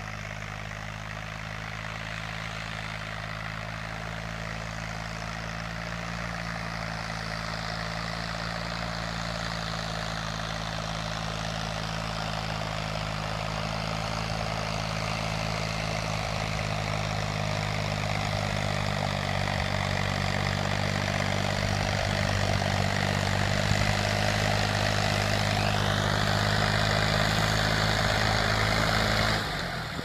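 Deutz-Fahr Agromaxx 60 tractor's diesel engine running under load while pulling a three-bottom plough through the soil. It is a steady drone that grows louder as the tractor comes closer, then cuts off suddenly near the end.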